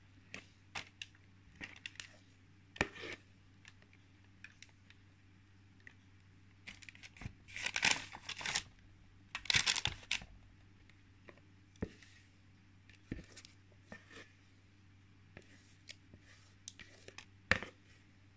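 Baking parchment crinkling and rustling, with scattered small clicks and scrapes of a bowl being handled as cake batter is poured into a lined tin. Two longer, louder crackly rustles come near the middle.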